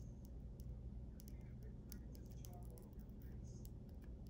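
Faint, scattered small clicks and ticks of a fingernail prying at the edge of a cracked tempered-glass screen protector on an Apple Watch as it is worked loose, over a low steady hum.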